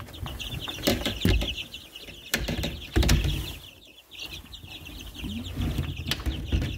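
A flock of young chicks peeping continuously, many short, quick downward-sliding chirps overlapping. Several knocks and thumps sound among them, the loudest about three seconds in.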